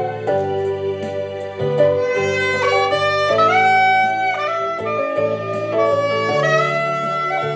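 A curved Chempo soprano saxophone plays a melody of held notes, some of them sliding up into pitch, over a backing track with a low bass line.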